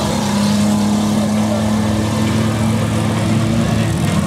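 Demolition-derby minivan engines running hard, a loud, steady engine drone that holds its pitch, over the noise of the vans moving in the dirt.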